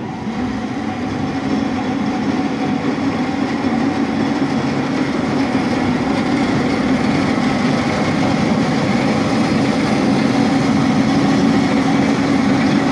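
DoALL V-36 36-inch vertical bandsaw running with no workpiece: its motor and blade come up to speed over the first couple of seconds, then run with a steady hum.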